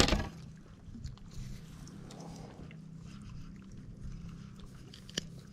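A single sharp knock at the start that rings briefly, then quiet scattered handling noises over a low steady hum, with a small click near the end.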